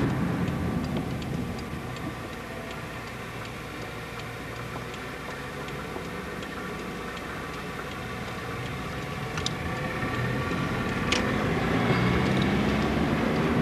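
A car driving, heard from inside the cabin: a steady low engine and road hum that grows louder over the last few seconds, with a couple of faint clicks in the second half.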